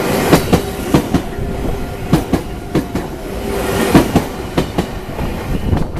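Meitetsu train passing, its wheels clacking over rail joints in close pairs of beats over a steady rumble.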